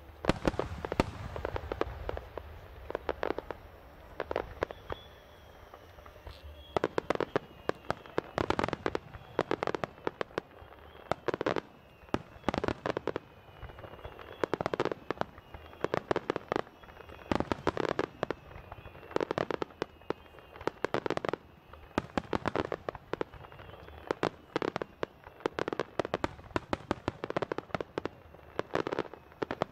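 Fireworks starmine barrage: aerial shells bursting in rapid volleys of sharp bangs, cluster after cluster every second or two, with a deep boom near the start.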